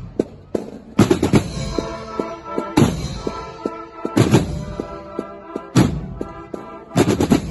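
A percussion ensemble (batería) playing a steady groove: heavy drum strikes land about every one and a half seconds, with many lighter hits between them over held pitched tones.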